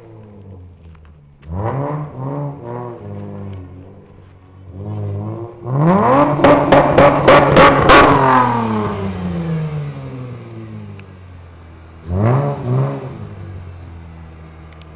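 Mazda MX-3 engine revved hard: a few quick throttle blips, then held high for about two seconds with a rapid stutter before the revs fall away. It is blipped twice more near the end.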